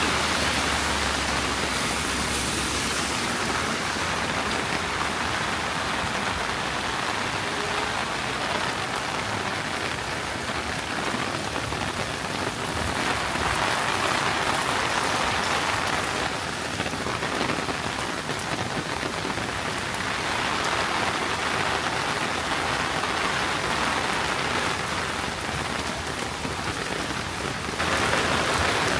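Steady summer rain falling and splashing on the ground, heavier for a few seconds about halfway through and again near the end.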